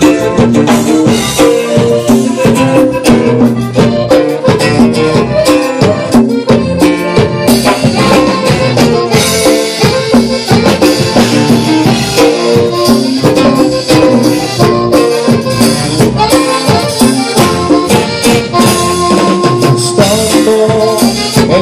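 Live band playing an instrumental passage with a steady beat: accordion over acoustic guitar, bass guitar and drum kit.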